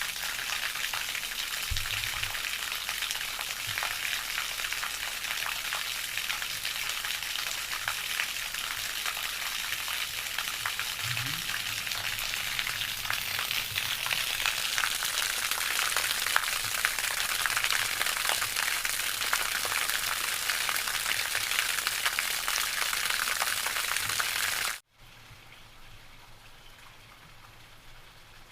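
Steady, crackling hiss of water, with a couple of brief low thumps. About 25 seconds in it cuts off abruptly and a much fainter hiss carries on.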